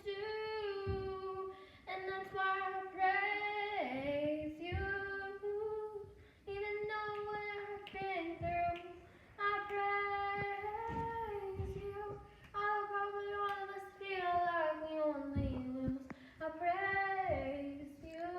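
A child singing a worship song alone, with no accompaniment. The voice holds long notes and slides down in pitch at the ends of phrases, with short breaks between them.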